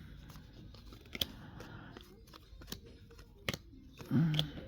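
Baseball trading cards being handled and flipped through by hand, with a few sharp clicks and snaps of card stock.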